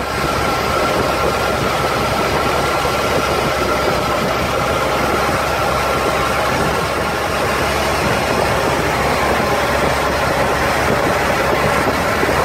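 Longtail boat's engine running steadily under way, an even, loud drone with a steady high tone through it.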